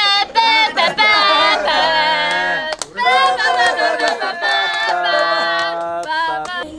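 Voices singing, holding long notes with short breaks between them.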